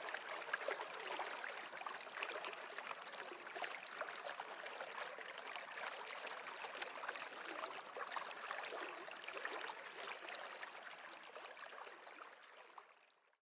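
Water babbling and gurgling in a stream, a steady bubbling rush that fades out near the end.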